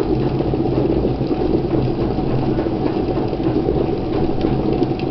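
Redmond RK-G152 glass electric kettle at a full rolling boil, with about a litre of water rumbling and rattling steadily as it waits for the automatic switch-off.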